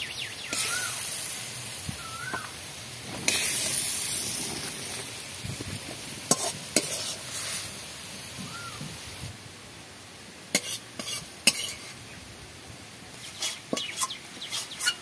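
Fish curry sizzling in a hot iron karahi while a steel ladle scoops it out, scraping the pan. The sizzle fades out about nine seconds in, and in the second half the ladle clinks sharply against the karahi and a steel plate several times. The curry is cooked and being dished out.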